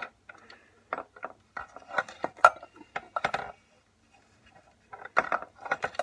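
A run of small hard clicks and clatters, like small objects being handled and knocked together close to the microphone, in two bursts with a pause of a second or so in the middle.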